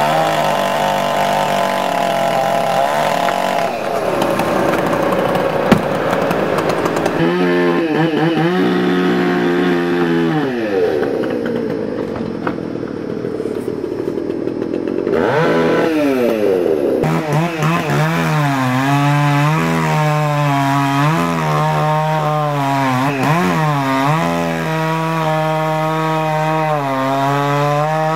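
Chainsaw running and cutting pine. Its engine pitch sags several times as the chain bogs in the wood, then climbs back to full revs.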